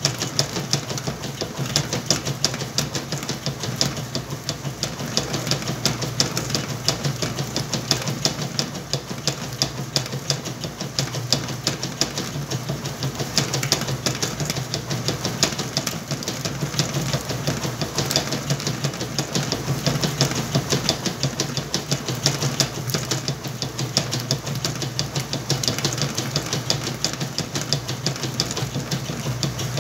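Whirlpool washing machine running with a load of towels: a steady motor hum under a fast, continuous rattling clatter.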